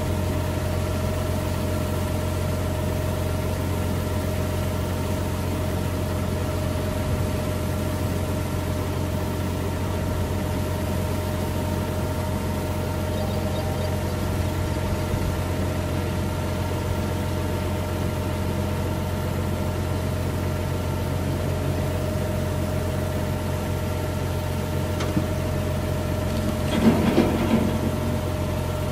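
Tractor engine running steadily while it powers the hydraulics that tilt a mobile grain dryer upright, with a steady high hum over the low drone. Near the end comes a short cluster of knocks as the dryer nears upright.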